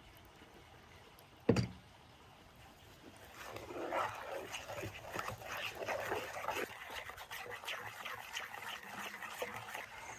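A single sharp knock about a second and a half in. Then, from about three seconds in, a wooden spoon stirring and mashing butter, oil and spices in a wooden bowl: a steady run of irregular wet squelches and clicks.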